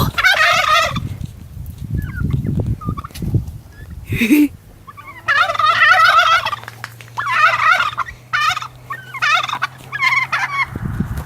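Domestic turkeys gobbling: about six rapid, warbling gobbles, one at the start and the rest following one another quickly in the second half. A low rumble underlies the first few seconds, and a steady low hum sets in about four seconds in.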